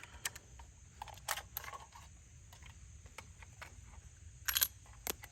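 Scattered metallic clicks and clacks of a 7.62x39 AR-15 rifle's action being worked by hand to clear a malfunction, with a sharper cluster of clacks about four and a half seconds in. The stoppage is put down to the rifle running short of lube.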